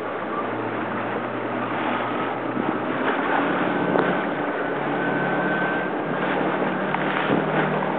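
Jet ski engine running steadily, its pitch stepping up a little about three seconds in, under a constant rush of wind and water noise.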